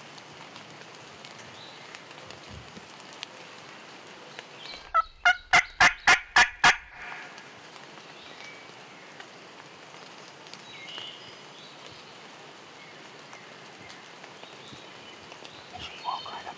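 A wild turkey gobbler gobbles once, loud: a quick rattling string of about eight notes lasting under two seconds, about five seconds in. Rain falls steadily throughout.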